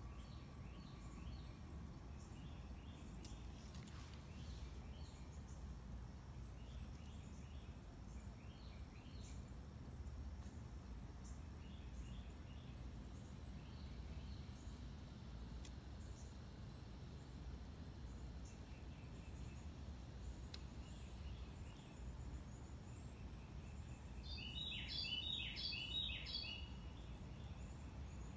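Quiet outdoor ambience: a steady low background rumble and a constant high thin whine, with small birds chirping faintly now and then and a louder run of quick chirps near the end.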